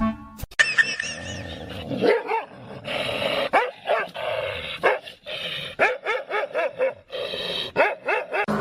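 Dog barking and yipping: many short calls in quick succession, with a fast run of yips about six seconds in.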